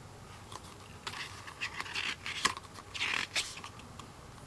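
A paper page of an album photobook being turned by hand: a couple of seconds of paper rustling and sliding with a few crisp clicks, loudest about halfway through.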